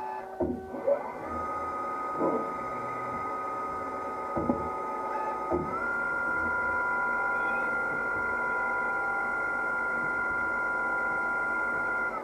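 Twin-spindle CNC lathe running while machining a small brass part: a steady spindle whine that rises in pitch as the spindle spins up about a second in, steps up again about six seconds in, and winds down near the end. A few clunks, likely from the tool turret, come in the first six seconds.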